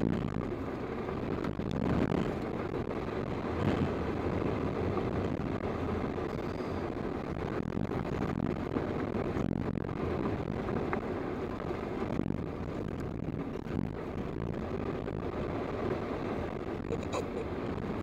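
Cab noise of a Toyota Land Cruiser driving a dirt and gravel road at about 50 to 70 km/h: a steady rumble of tyres and engine with a few light ticks, played back at double speed.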